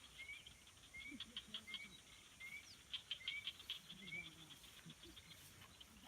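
Quiet forest ambience with a bird repeating a short rising call about every half second, stopping about four seconds in, over faint higher clicking chirps.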